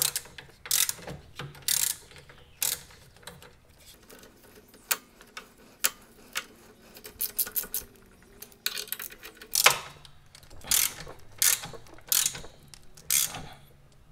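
Hand ratchet wrench clicking in short bursts about a second apart, with a couple of brief pauses, as a lock nut is run down onto a bolt.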